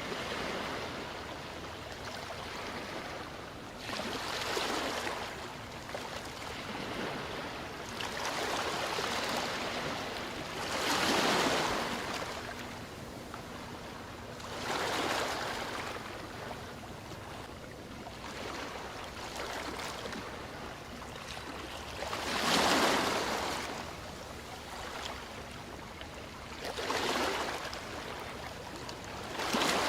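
Gentle ocean waves washing onto a shore, each wave swelling and receding every few seconds over a steady background hiss of surf; the strongest waves break about 11 and 22 seconds in.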